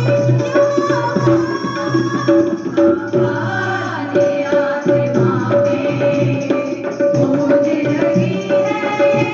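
Instrumental passage of a Hindi Christian worship song: a tabla rhythm under a gliding melody line.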